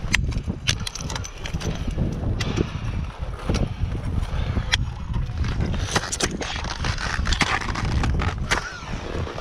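Ice axe picks swung into waterfall ice, a series of sharp strikes about once a second, some in quick pairs, with scraping between them, over a steady low rumble.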